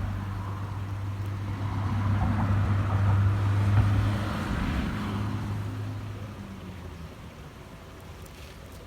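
Engine of a passing motor vehicle, a steady low hum that swells to its loudest about four seconds in and then fades away.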